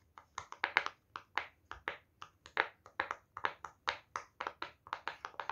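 Silicone pop-it fidget toy bubbles being pushed through one after another as fast as possible, a rapid, irregular run of soft pops, about five a second.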